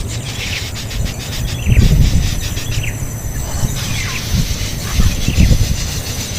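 Short, high, quickly falling bird chirps, repeated many times, with two spells of loud low rumbling about two seconds and five seconds in.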